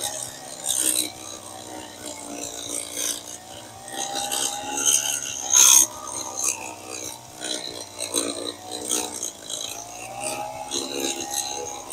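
Walk-behind power edger's small engine running under load as its blade cuts along a driveway edge, the engine speed wavering up and down. Sharp ticks and scrapes of grit and dirt striking the blade guard, the loudest a little before the middle.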